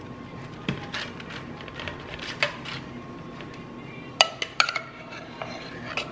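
A metal spoon clinks and scrapes against a tin can and a stainless steel baking pan while beans are spooned out and spread. There are scattered light taps, then a quick cluster of sharper, ringing clinks about four seconds in.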